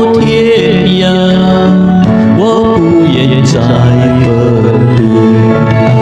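Music: a man singing a Mandarin pop ballad over a backing track.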